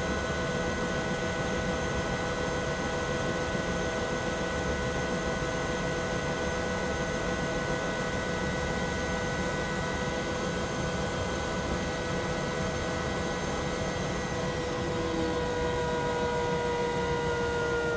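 Bell 212 helicopter heard from inside the cabin, its twin turboshaft engines and rotor running steadily at idle: a layered turbine whine over a broad rumble. In the last few seconds the whine begins to sink slowly in pitch as the engines start to wind down.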